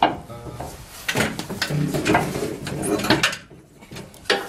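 Metal suspension parts clanking and scraping as a bracket is worked into its bolt holes by hand, a string of separate knocks with a short quiet spell near the end.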